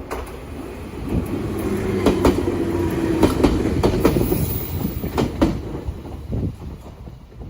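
Jōmō Electric Railway electric train passing, its wheels clicking in pairs over rail joints. The sound builds, is loudest in the middle and fades away near the end.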